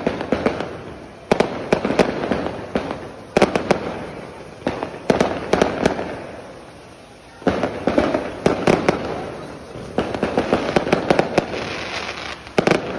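Fireworks and firecrackers going off: clusters of sharp bangs and crackling over a dense noisy rush from ground fountains and flares, dying down briefly about six seconds in before picking up again.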